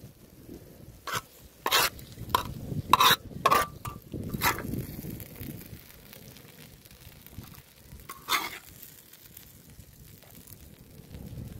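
Metal spoon scraping and clinking on a hot iron griddle as fried potato filling is scooped up: a quick run of short strokes over the first few seconds and one more past the middle, over a faint sizzle of the food on the griddle.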